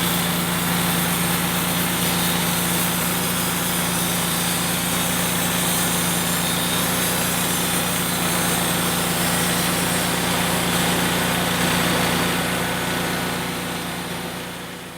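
Engine of a Wood-Mizer LT35 portable band sawmill running steadily with a constant hum, fading out near the end.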